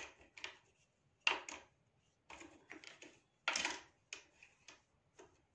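Hair being combed: about a dozen short, dry strokes at an uneven pace.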